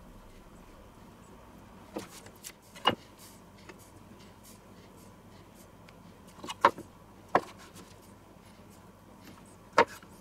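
A handful of short, sharp knocks and clicks from kitchen handling, among them a chef's knife meeting a wooden cutting board as bananas are halved lengthwise. The knocks come about five times, spread out, over a quiet background.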